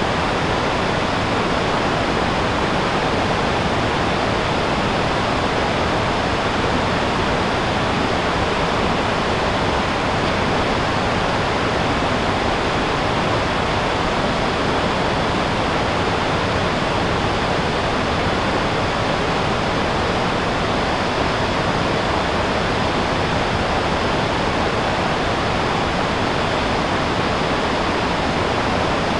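River rapids rushing over sandstone: a loud, steady, unbroken roar of white water.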